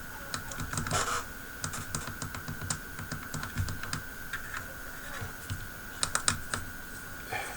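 Irregular light clicks and taps from small tools and parts being handled at a soldering bench, over a faint steady high whine.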